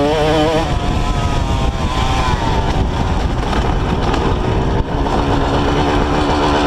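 Honda CR two-stroke dirt bike engine running on the move, its note dropping away in the first couple of seconds, then settling to a steady pitch near the end, over a heavy low rush of wind and riding noise.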